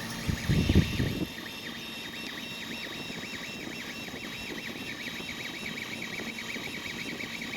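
Ender 3 3D printer's stepper motors whining as the print head moves back and forth laying down infill, the pitch flipping between two notes several times a second, over the steady hum of its fans. A brief low rumble sounds in the first second.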